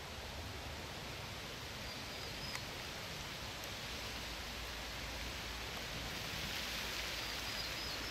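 Steady outdoor hiss, with one sharp click about two and a half seconds in and a faint, short, high chirp twice.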